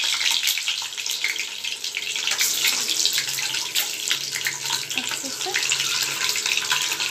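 Boiled eggs sizzling and crackling in hot oil in a shallow nonstick pan: a steady hiss with many small pops.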